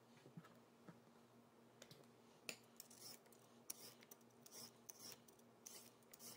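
Handheld vegetable peeler scraping down a raw carrot: faint, quick, crisp rasping strokes, about two a second, beginning a little over two seconds in.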